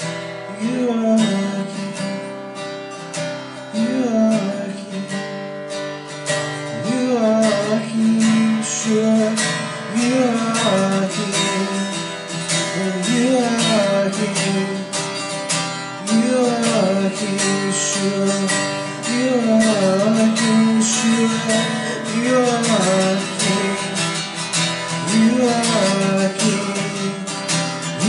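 Acoustic guitar strummed steadily through an instrumental passage of a slow worship song, with a wordless vocal line rising and falling over it every couple of seconds.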